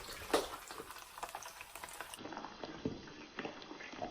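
Frozen pork pot stickers frying in oil in a pan, the oil bubbling and sizzling with many small irregular pops and crackles.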